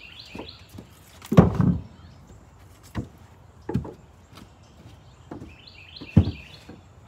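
Irregular knocks and thumps, the heaviest about a second and a half in and another near the end. A bird chirps a short high phrase near the start and again near the end.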